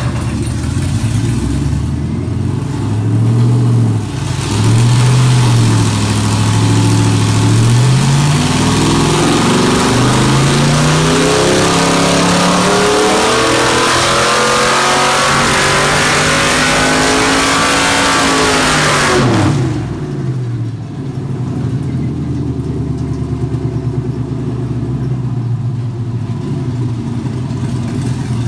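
GM LS6 5.7-litre V8 from a Cadillac CTS-V running on an engine dyno through open exhaust stacks. It idles with a few quick revs, then makes a long full-throttle pull with the pitch climbing for about ten seconds. About two-thirds of the way in it drops sharply back to a steady idle.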